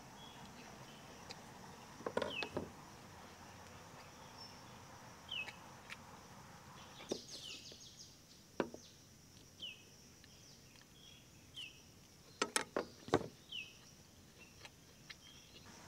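A bird repeats a short falling chirp every second or two over a steady high insect drone. A few sharp clicks and knocks of a knife and metal tongs on a cutting board, the loudest cluster a little past halfway.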